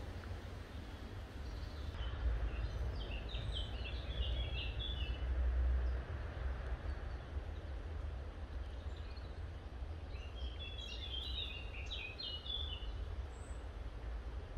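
Two bursts of bird song made of quick chirping notes, one a few seconds in and the other late on, over a steady low rumble.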